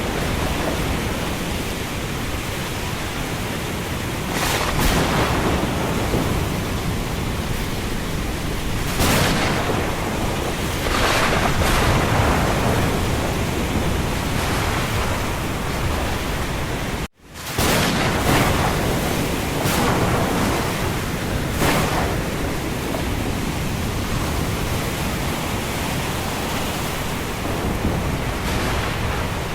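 Storm wind and rain making a steady full-range rush that swells in gusts every few seconds. A little past halfway the sound cuts out for an instant and comes straight back.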